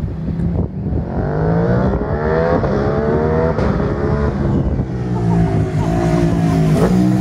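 Ducati Panigale V2's 955 cc L-twin with a full Akrapovič exhaust, ridden hard. The engine note is loud, climbing in pitch and falling back several times.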